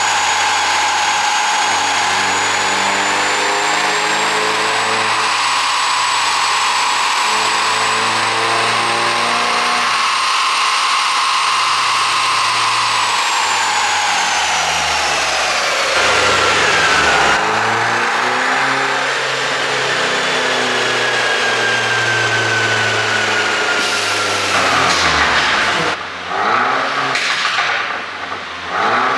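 Mercedes-Benz E300's turbocharged 2.0-litre four-cylinder engine running under a pop-and-crackle ECU tune: engine pitch holds and then falls away about halfway through as it slows. Near the end comes a run of sharp cracks from the exhaust, the pops the tune is meant to give.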